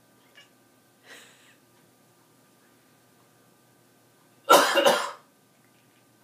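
A person coughing: a short, loud burst of two or three quick coughs about four and a half seconds in, after a fainter breathy sound about a second in.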